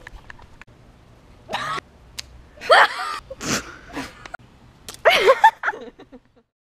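Teenagers laughing and shrieking in several short bursts, then the sound cuts off near the end.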